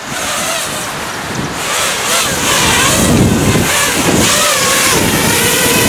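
Racing quadcopter's brushless motors (Racerstar BR2205 2600kv, on a 3S battery) spinning up, a whine whose pitch wavers up and down from about two seconds in, under heavy wind noise on the microphone.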